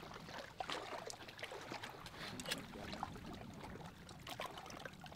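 Small waves lapping and splashing against a boat hull, a quiet irregular patter of water with scattered faint clicks.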